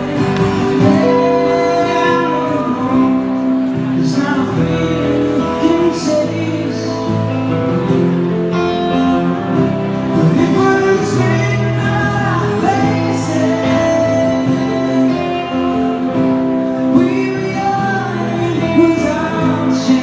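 A band playing a song live: a strummed acoustic guitar and an electric guitar, with a man singing over them.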